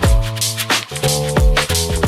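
Electronic lounge music with a steady beat: deep kick drums that drop in pitch, sustained chords and bright hi-hat hits.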